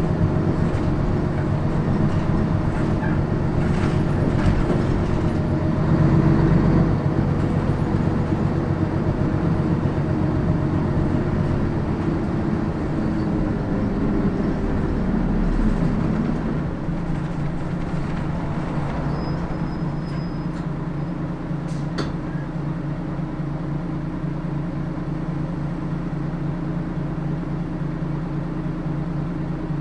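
Diesel route bus running on the road, heard from on board: a steady, layered engine hum with road noise. About halfway through it drops to a quieter, even drone. A single sharp click comes about three-quarters of the way in.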